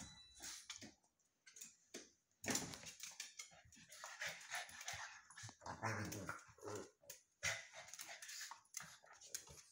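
Two pugs play-fighting: short whines and barks mixed with quick, irregular clicks and scuffles of their claws and bodies on a tile floor.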